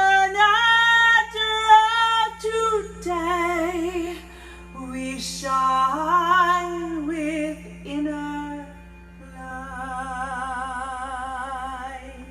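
Female lead vocalist singing long, drawn-out notes with vibrato over a steady low drone, without words. The last note is held for about three seconds and fades near the end.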